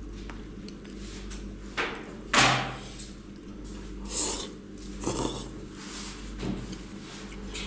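A man slurping hot knife-cut noodles from a bowl: about five short, noisy sucks, the loudest about two and a half seconds in.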